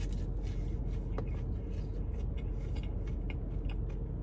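Chewing a crispy, flaky deep-fried pie crust: a bite, then faint scattered crunches, over a steady low rumble inside a car.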